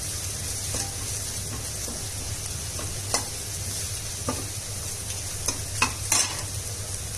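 Chopped onions and ground spices sizzling in hot oil in a pan while being stirred, with a spoon scraping and clicking against the pan several times, most often near the end.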